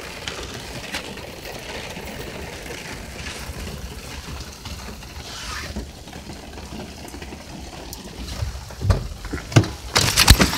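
Phone-microphone handling noise: a steady low rumble with the rustle of a nylon puffer jacket rubbing on the microphone. Near the end come several loud bumps and knocks as the phone is jostled.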